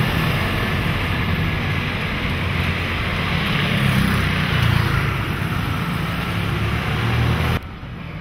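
Street traffic of motor scooters riding past, with one scooter passing close by about halfway through, the loudest moment. The sound cuts off abruptly near the end, leaving a quieter street background.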